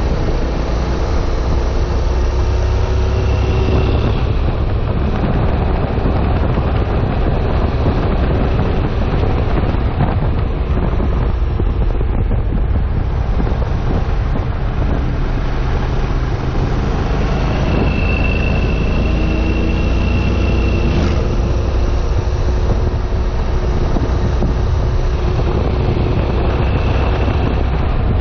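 Honda NC700X's parallel-twin engine running at a steady cruise, with wind rushing over the microphone as the motorcycle rides along.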